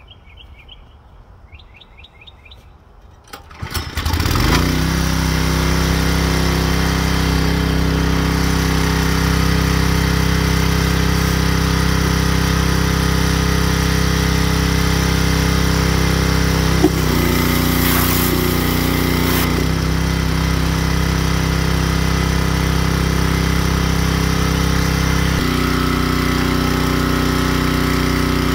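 Gas pressure washer engine starting about three seconds in, then running at a steady speed. Around the middle its note drops for about two seconds under a hiss, and it shifts pitch again near the end.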